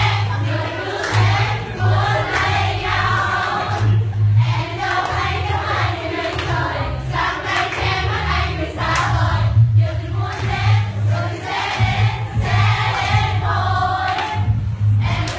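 Song with a group of voices singing over a pulsing bass beat.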